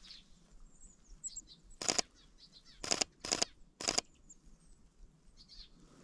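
Four camera shutter clicks, one about two seconds in and three more in quick succession between three and four seconds, over faint high chirps of small birds.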